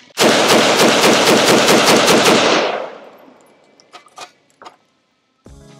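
Suppressed 7.62x39 CZ Bren 2 rifle fired in a fast string of shots lasting about two seconds, the echo trailing off after the last shot. A few light clicks follow.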